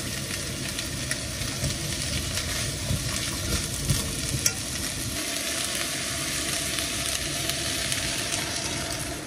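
Diced potatoes, carrots, onions and celery sizzling in a hot stainless steel wok while a metal spoon stirs them, with a couple of sharp clinks of spoon on pan about four seconds in.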